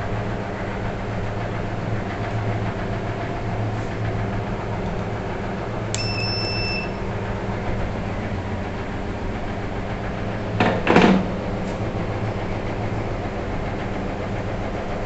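Over a steady low hum, a sharp click as the red cable is first touched to the battery's positive terminal, then a high electronic beep of about a second from the inverter as it takes battery power. About five seconds later comes a short loud scraping rustle.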